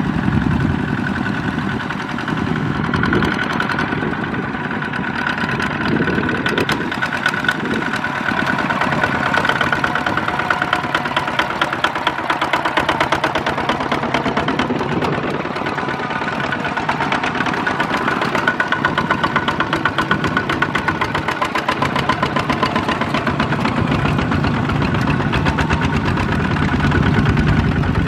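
Kubota RT155 power tillers' single-cylinder diesel engines running under load as they haul loaded trailers, a rapid, even beat of firing strokes that holds steady throughout.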